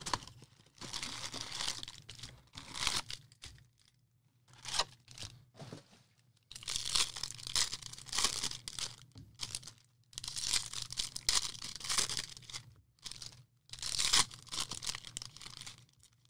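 Paper and foil packaging of a 2020 Bowman Draft baseball card box and its packs being torn open and crinkled by hand. It comes in about five bouts of tearing and rustling with brief pauses between them.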